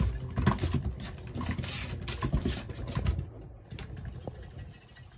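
Battery-powered butterfly spinning cat toy running: a low motor hum with irregular clicking and clattering as the butterfly wand whirls around its base, stopping about three seconds in.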